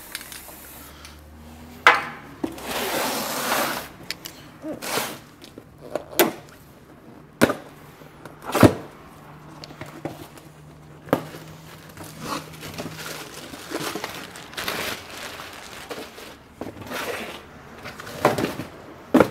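A short hiss of an aerosol can of Fluid Film being sprayed, about two seconds in, then a string of sharp knocks and clunks of metal parts and tools being set down and handled, the loudest about halfway through.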